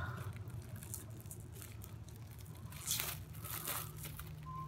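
Thin paper napkin rustling and crinkling as it is handled, with a louder rustle about three seconds in.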